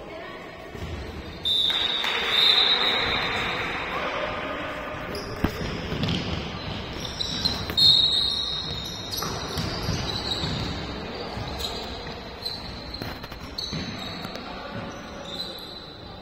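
Echoing indoor sports-hall noise during a korfball match: crowd and players shouting, swelling suddenly about a second and a half in, with short high squeaks from the court.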